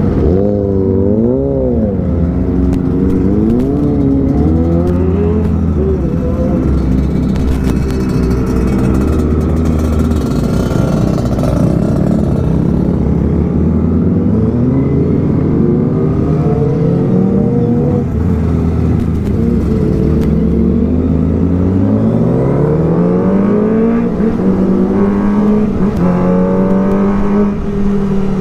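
Kawasaki ZX-25R's 250 cc inline-four engine running under the rider, its pitch rising and falling again and again as the throttle is opened and closed through town riding.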